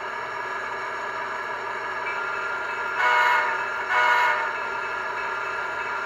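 ESU LokSound 5 sound decoder in an HO-scale SD90/43MAC model playing its recorded EMD 16-710G3C-ES diesel prime mover, running steadily through the model's small speaker. Two short locomotive horn blasts sound about three and four seconds in, the second a little shorter.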